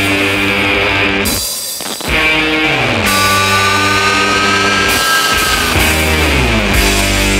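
Background rock music led by guitar, with downward pitch slides opening its phrases and a brief break about one and a half seconds in.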